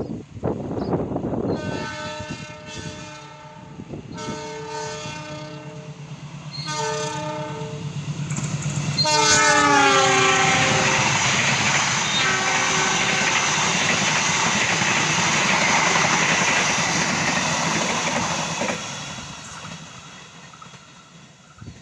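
Locomotive horn sounding a series of short blasts as a friendly greeting, the pitch dropping as the locomotive passes at about nine seconds in. The train then rolls past with wheel clatter and a steady engine drone, fading away near the end.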